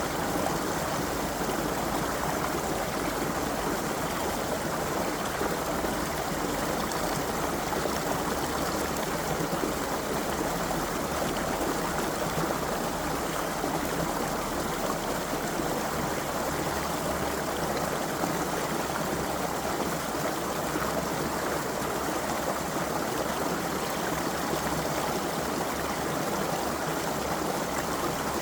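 A creek's water flowing steadily, an even babbling rush with no changes.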